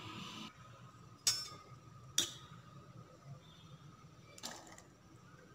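Two sharp clinks about a second apart as a steel ladle scooping boiled green peas knocks against a pressure cooker and a small steel bowl, then a fainter knock near the end.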